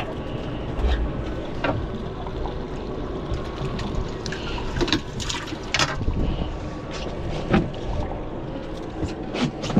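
Water sloshing and trickling aboard a small boat, with scattered clicks and knocks throughout.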